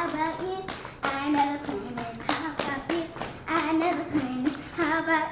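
A young girl singing a melody, with several sharp hand claps among the notes.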